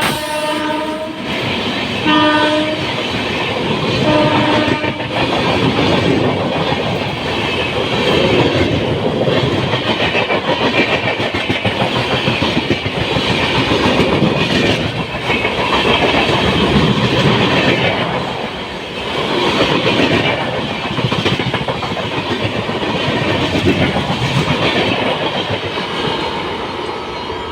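Indian Railways express train: two short horn blasts in the first five seconds, then the train rushing past with wheels clattering over the rail joints, easing off a little near the end.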